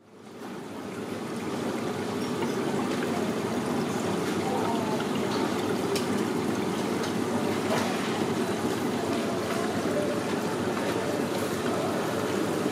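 Steady trickling water, fading in over the first couple of seconds and then running evenly.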